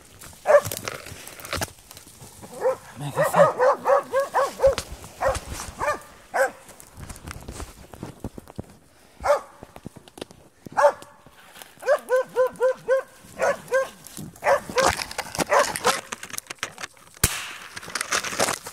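Spitz hunting dog barking at quarry during a badger hunt: strings of quick, high-pitched barks, several a second, twice, with single barks between.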